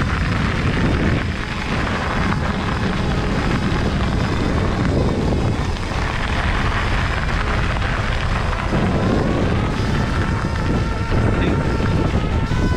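Steady wind rushing over the microphone and the rumble of fat tyres rolling over a gravel path as an electric cargo bike rides along.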